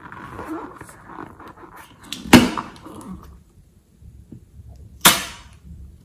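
Hands squeaking and rubbing on a liquid-filled rubber balloon, a sharp snap a little over two seconds in, then the snip of scissors cutting through the balloon's neck about five seconds in.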